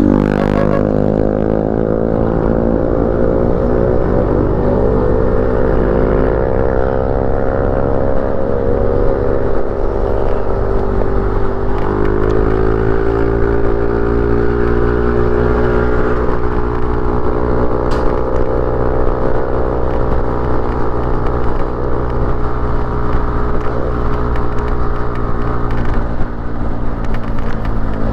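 Motorcycle engine running on the road, its pitch rising and falling with speed and climbing clearly about twelve seconds in, over a steady low rumble.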